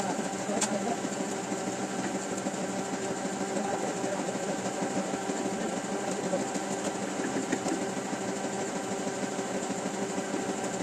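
Printing press machinery running with a steady, even mechanical hum; a faint click under a second in.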